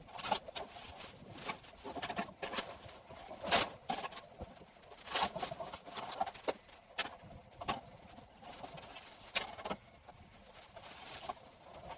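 Irregular sharp clicks and knocks over a faint rustle, several a second at times, with the loudest a little past three and a half seconds in.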